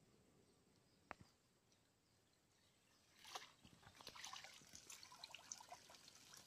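Faint water dripping and trickling, with scattered small clicks starting about three seconds in, after a single click about a second in.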